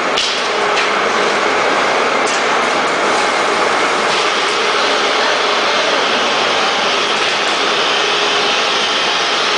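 Automatic powder bag-packing machine running with a steady, loud mechanical noise. A few faint clicks come in the first few seconds.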